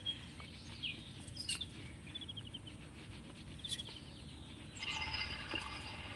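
Birds chirping outdoors: scattered short chirps and quick trills. Near the end a denser, steadier chorus of chirping sets in, over a low, even rumble.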